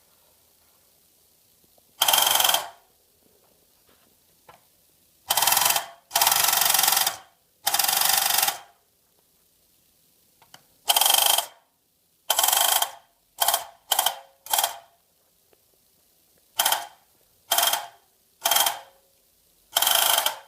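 Battery-operated tin toy AK-47 machine gun firing in bursts, about a dozen times: its motorised mechanism rattles loudly with a steady high tone, some bursts short and clipped, a few running about a second, with quiet between.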